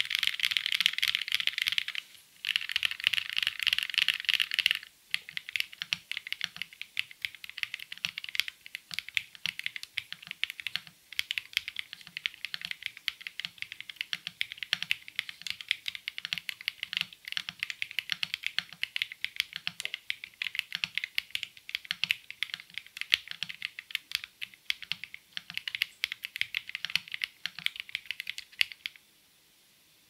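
Typing on a Monsgeek M1 keyboard with BerserKeys Wolf Warrior linear switches (full POM, factory hand-lubed, no switch foam): a fast, dense flurry of keystrokes for the first five seconds with a short break about two seconds in, then steady typing that stops about a second before the end.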